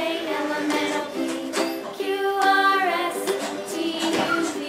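Background music: a melody moving over held chords.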